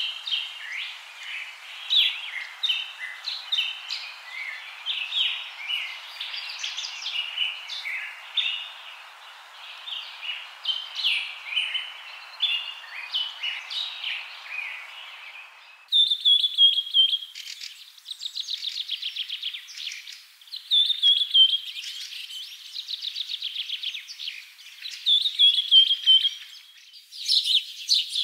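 Birds chirping and singing: many short overlapping chirps over a faint hiss, then, about halfway through, the hiss cuts off and repeated rapid trills that drop in pitch take over.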